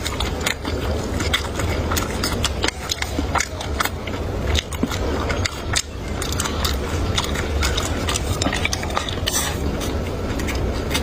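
Close-miked eating: irregular wet chewing and crunching clicks with a few utensil taps, over a steady low hum.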